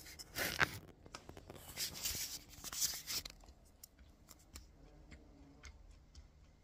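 Crunching of a chocolate-coated honey and roasted-nut grillage candy being bitten and chewed: two spells of crunching in the first three seconds or so, then a few faint clicks.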